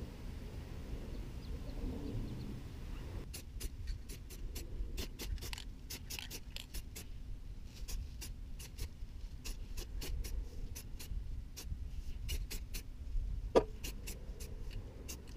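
A low steady outdoor rumble. From about three seconds in, a scatter of small sharp clicks comes at a few a second, irregularly, with one louder click near the end.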